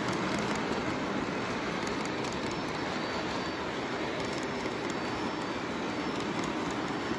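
O-gauge model intermodal freight train rolling steadily past: the continuous rumble and rattle of its cars' wheels on the track, with a few faint clicks.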